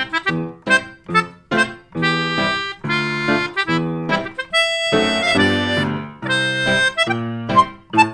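Instrumental music: a bouncy tune of short, separate notes, with a few longer held notes about halfway through.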